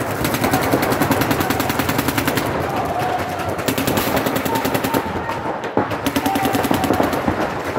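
Paintball markers firing rapid strings of shots, many per second, with a brief lull about five and a half seconds in.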